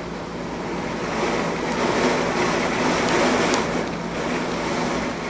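Hurricane wind and heavy rain, a steady rushing that swells with a gust about a second or two in and eases again near the end.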